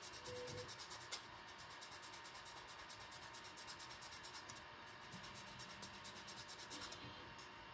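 Hobby knife shaving the edges of a small 3D-printed plastic part: a faint scraping in quick repeated strokes, trimming the part so that it fits.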